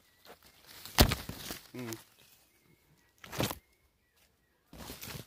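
Rustling and crunching of dry leaves and foliage from footsteps and brushing through the undergrowth, in three or four separate bursts, the loudest about a second in.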